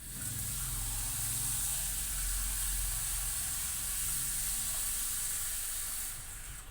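Pot of salted water with cut potatoes heating on the stove toward the boil: a steady hiss with a faint low hum under it, starting and stopping abruptly.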